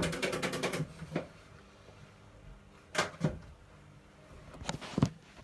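A rapid rattling pulse dies away in the first second, then a few scattered light knocks and clicks, one pair close together about three seconds in.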